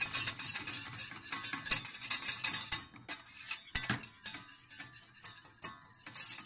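Wire whisk stirring a butter-and-flour roux in a stainless steel saucepan, its wires clicking and scraping quickly against the pan, with a brief pause about three seconds in and a sharper knock just after. This is the roux being cooked for béchamel sauce.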